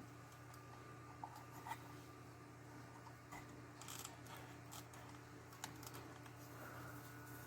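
Faint scattered clicks and light scratching from hands handling small plastic parts and wires of an RC truck, over a steady low hum.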